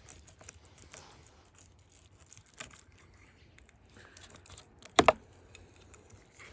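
Knife cutting into a whole salmon behind the head: small scraping and clicking sounds, with a loud, sharp double knock about five seconds in.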